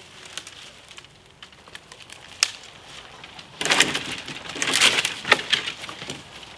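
Dead branches and dry twigs rustling, crackling and snapping as deadwood is gathered and dragged through the undergrowth. There are a few light twig clicks at first, then louder crackling from about three and a half seconds in, with sharp snaps near the end.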